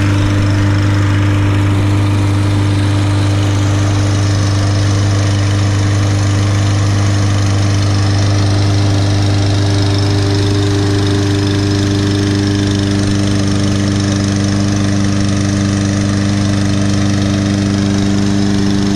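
Briggs & Stratton 625EX Series 150cc engine of a Husqvarna HU625AWD walk-behind lawn mower running loud and steady at a constant speed.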